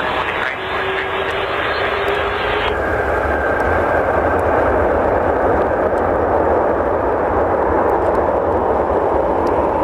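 Lufthansa Airbus A330's two jet engines during the landing roll just after touchdown: a steady jet rumble and rush that swells from about three seconds in.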